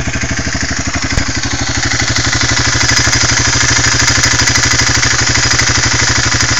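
Minsk X200 motorcycle's single-cylinder engine idling steadily, with even firing pulses. The engine has a burnt piston with play in the cylinder.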